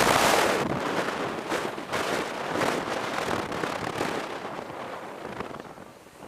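Strong wind gusts buffeting the microphone and rushing through the bare trees. The noise swells and fades several times, strongest at the start and easing toward the end.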